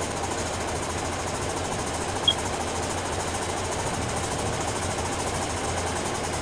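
Steady low hum with an even background hiss, and one short sharp click about two seconds in.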